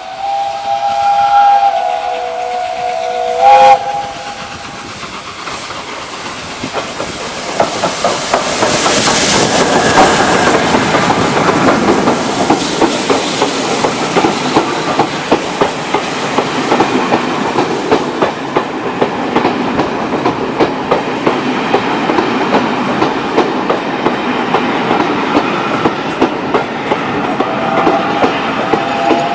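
Steam whistle of Peppercorn Class A1 4-6-2 No. 60163 Tornado sounding for about four seconds, several tones at once and ending in a short louder blast. Then the locomotive and its train roll into the platform: a rising rush of steam hiss and running noise with a steady clickety-clack of wheels over rail joints.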